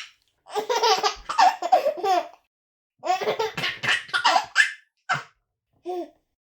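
A baby laughing in two long fits of quick, breathy giggles with a pause between them, then two short single laughs near the end.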